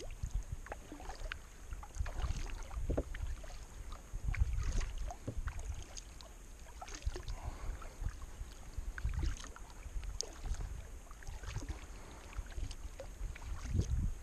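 Kayak being paddled on a river: the paddle blades dip and drip with many small splashes and ticks, over a low rumble that swells every few seconds.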